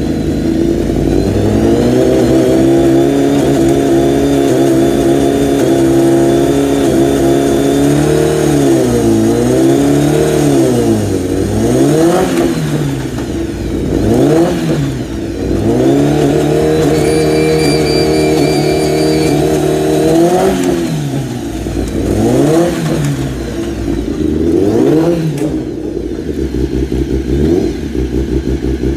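Honda CBR1000RR-R Fireblade World Superbike's inline-four engine running steadily at a fast idle on its paddock stand. From about nine seconds in it is blipped again and again, the revs rising and falling.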